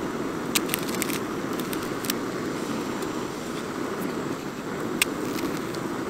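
Gas cartridge stove burner running with a steady, loud rushing hiss, with a few sharp clicks from a knife cutting an onion, the loudest about five seconds in.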